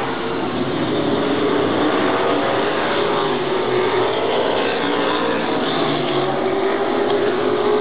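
Several stock cars racing past on the oval, their engines running hard in a continuous drone that wavers up and down in pitch as the cars come through the turn and pass close by.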